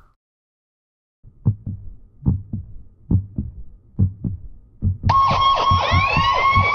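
Heartbeat sound effect: low thumps in lub-dub pairs, about seventy a minute, starting after a second of silence. About five seconds in, a steady high electronic tone comes in with rising sweeps over it while the heartbeat goes on.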